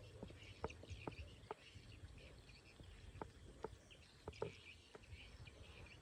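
Faint, irregular clicks or taps, about one or two a second, over faint high chirping.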